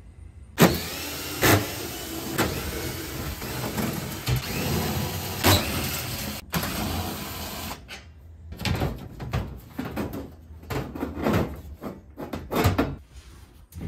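A power tool backs out the 10 mm bolts holding a sheet-metal access panel over a fuel tank. It runs steadily for about six seconds, stops, then comes in a quick string of short bursts.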